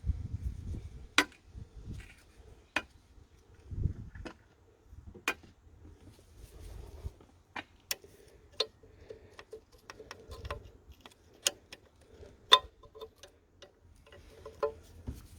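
Irregular sharp metallic clicks and clinks of hand tools and small metal parts being handled, with a few dull low knocks in between.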